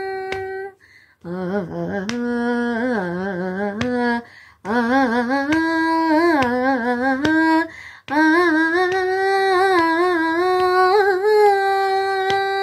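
A girl singing solo with no accompaniment: a passage of long held notes with wavering, ornamented turns, broken by short breaths about a second, four and a half and eight seconds in.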